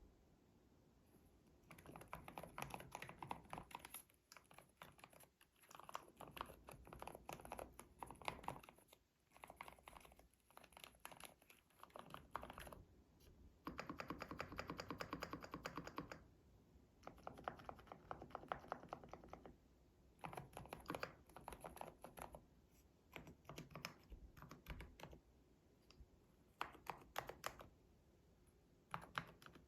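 Typing on a Keychron K10 Pro mechanical keyboard with low-noise silent red linear switches: quiet, rapid keystrokes in runs of a few seconds with short pauses between them.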